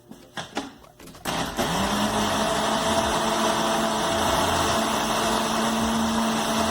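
Countertop blender switched on about a second in after a few light clicks, its motor rising quickly to a steady hum as it blends eggs, milk and butter into cake batter.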